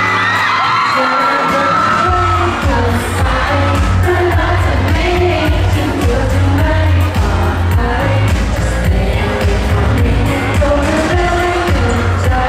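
Live male vocals sung into a microphone over a pop backing track with a heavy bass beat, which comes in about two seconds in. Fans scream over the opening moments.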